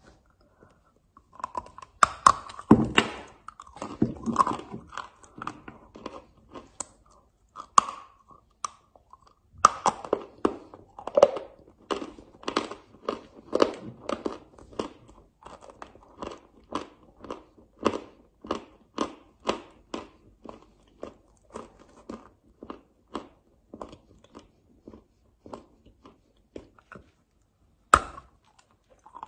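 A block of chalk being bitten and chewed with a crisp crunch. A few loud bites come near the start, then steady chewing at about two crunches a second, and another bite near the end.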